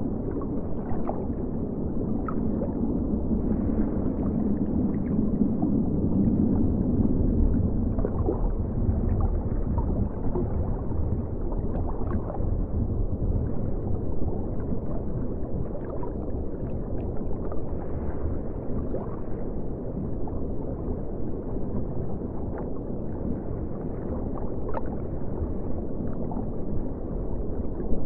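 Underwater ambience: a steady, muffled rumble of moving water with scattered faint clicks.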